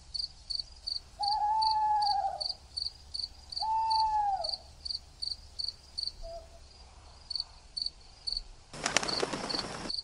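Night-ambience track with a cricket chirping steadily several times a second. Two long arching calls come in the first half, and a one-second burst of hiss comes near the end.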